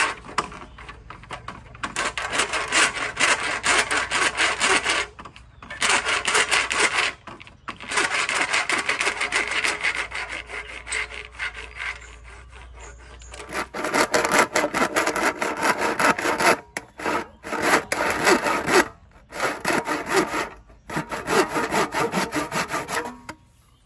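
Rapid, repeated scraping strokes in bursts of a few seconds, with short pauses between bursts and a quieter stretch about halfway through.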